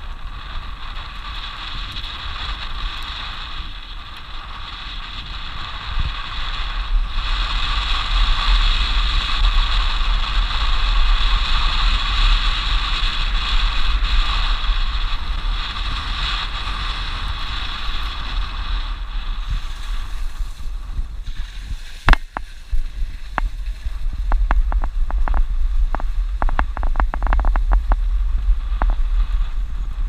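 Suzuki Jimny driving on a dirt road, heard from a camera mounted outside on its body: wind buffeting the microphone with a deep rumble over the engine and tyre noise. About two-thirds of the way through there is one sharp knock, the loudest sound, followed by a quick run of smaller clicks and knocks.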